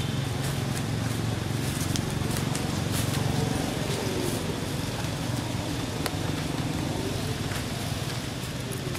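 Steady outdoor background rumble with a few faint ticks and rustles.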